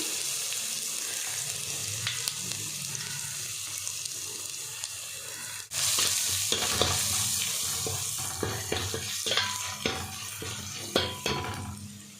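Tempering sizzling in hot oil in a pot: ground pepper, cumin and garlic frying with mustard seeds, curry leaves and dried red chillies. The sizzle breaks off briefly about halfway, then goes on while a ladle stirs with short knocks and scrapes against the pot.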